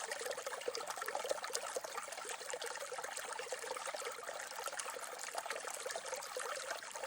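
Mountain creek water trickling and burbling steadily.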